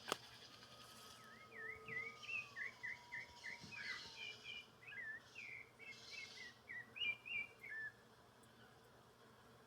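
A songbird singing a fast, varied run of chirping and twittering notes, starting about a second and a half in and lasting about six seconds. A single sharp click right at the start is the loudest moment.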